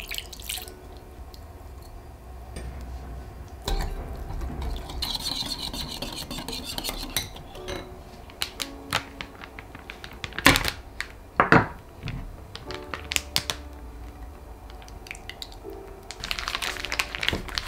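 Liquid poured into a glass bowl, then a small wire whisk scraping and clinking against the glass as it mixes a white miso marinade, with two sharp clinks in the middle. Near the end, a plastic zipper bag crinkling as it is handled.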